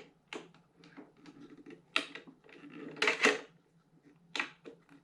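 Steel bolt of a Remington Scoremaster 511 .22 rifle clicking and scraping against the receiver as it is worked back into the action. There is a handful of sharp metal clicks, the loudest two close together about three seconds in.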